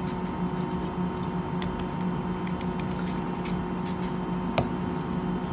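Knife slicing carrots on a plastic cutting board: irregular short taps and crisp cuts, with one louder tap near the end, over a steady hum.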